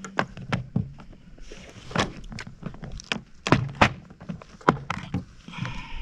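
Irregular small clicks and taps of trailer wiring and plastic crimp connectors being handled, with a brief high squeak near the end.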